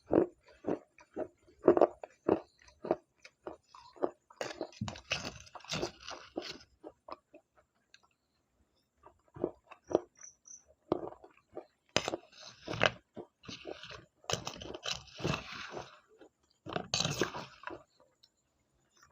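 Slate pencil being bitten and chewed close to the microphone: sharp, crunchy bites in quick runs, with a short pause about eight seconds in.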